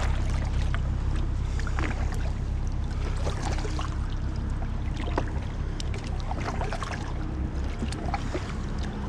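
Kayak paddle strokes dipping and splashing in water, with scattered drips and small knocks, over a steady low rumble.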